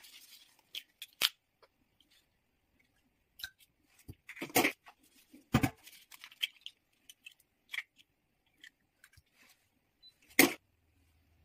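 Eggs being cracked and separated by hand over ceramic bowls: a scattered series of sharp taps and knocks of shell on the bowl rim, with soft handling sounds between.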